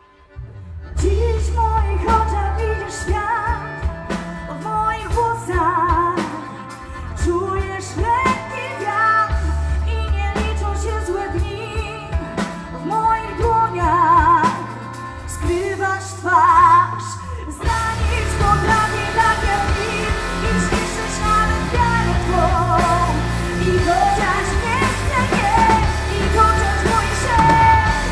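Live band music with a woman singing lead over electric guitars, bass and drums. The band comes in about a second in, and the sound grows fuller about two-thirds of the way through.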